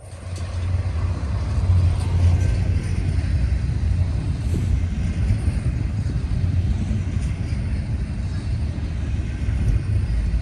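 Double-stack intermodal container train rolling past: a steady low rumble of the well cars' wheels on the rails, swelling within the first second and holding, with a few faint clicks.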